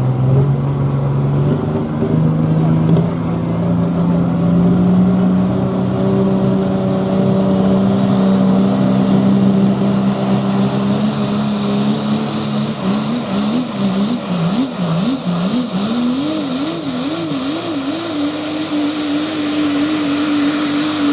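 Super stock diesel 4x4 pickup (Ford Super Duty) revving at the line, its engine pitch climbing slowly. The truck then launches into the pull: the engine speed surges up and down rapidly for several seconds as it fights for traction against the sled, then holds high and steady, with a high whistle rising over it.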